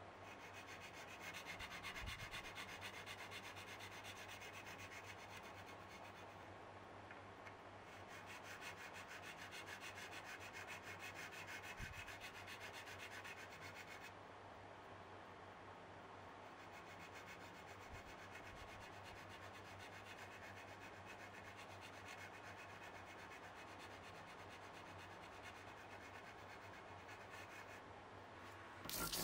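Flat steel fret file rasping back and forth across the fret ends of a bass neck, louder through the first half and softer after about 14 seconds.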